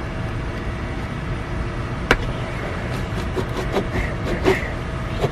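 A plastic fly swatter and hands tapping and handling a cardboard toy box: one sharp tap about two seconds in and a few softer taps later, over a steady low rumble.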